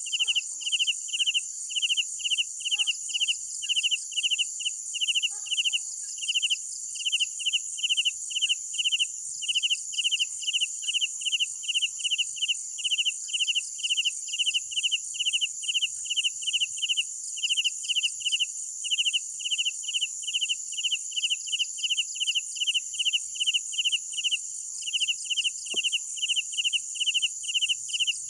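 Field crickets chirping at night in a steady, regular rhythm of about two chirps a second, over a continuous high-pitched insect trill.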